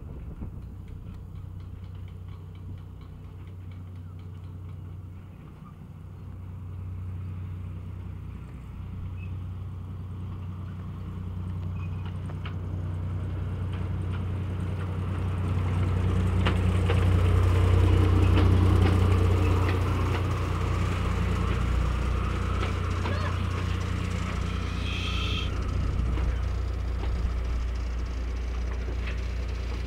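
Miniature railway diesel-outline locomotive's engine running as the train draws in along the platform, growing louder to a peak a little past halfway and then holding steady.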